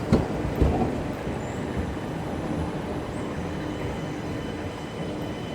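Al Boraq high-speed train running through the station with a steady rumble. Two short thumps about half a second apart near the start.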